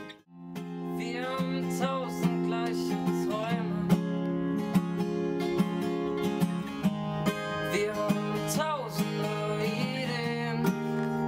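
Acoustic guitar strummed in a steady rhythm while a man sings over it, after a brief gap in the sound at the very start.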